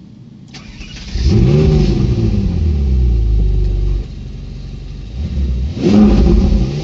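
Ferrari 458 Italia Spider's V8 starting. A short starter whir is heard, then the engine catches about a second in with a flare of revs and settles into a loud fast idle. The idle drops about four seconds in, and the engine is briefly revved up and back down near the end.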